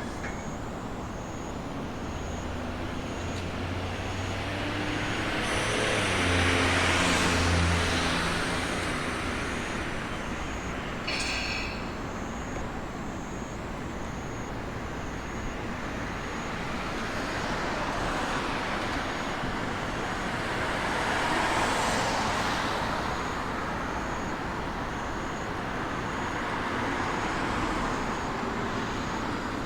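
Road traffic passing: several vehicles swell and fade in turn, the loudest about seven seconds in, with a brief high tone about eleven seconds in.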